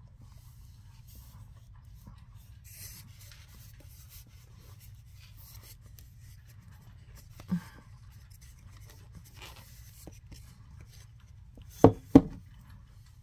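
Faint scratching and rustling of powdered starch being handled, with one knock about halfway through and two sharp knocks in quick succession near the end, the loudest sounds.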